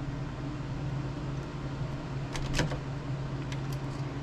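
Steady low hum of a fan or similar running machine, with a few light clicks of small parts being handled, about two and a half seconds in and again shortly after three and a half seconds.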